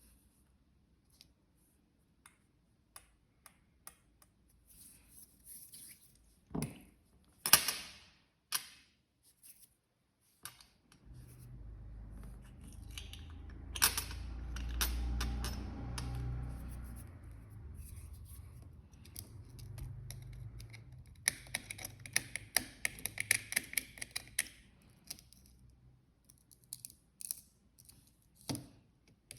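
Handling noises close to the microphone: scattered small clicks and taps, a low rumble in the middle, and a few seconds of rustling about three quarters of the way through.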